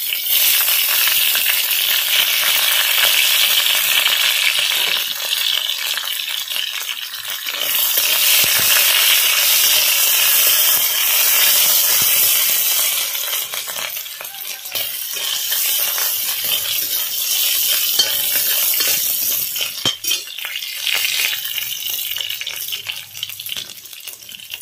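Bay leaves, chives and ginger sizzling in hot oil in a black wok, with a spatula stirring and scraping them now and then. The sizzle dies down somewhat in the second half.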